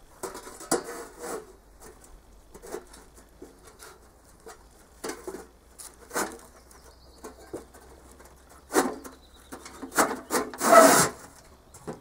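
A flat lid scraped and knocked against the rim of a metal smoker box as it is fitted on: a string of short scrapes and knocks, the loudest and longest scrape near the end.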